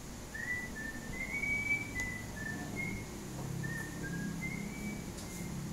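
A person whistling a slow tune: a string of about nine short notes, each a fraction of a second, stepping a little up and down around the same pitch, over a faint low hum.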